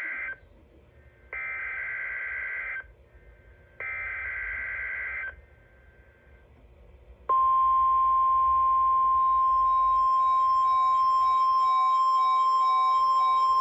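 NOAA Weather Radio SAME header bursts of warbling digital data tones. The end of one burst is followed by two more, each about one and a half seconds long with a second of quiet between. After a two-second pause, the steady 1050 Hz weather alert tone starts and holds, with a faint pulsing beep joining it soon after. Together they make up the signal sequence of a Required Weekly Test.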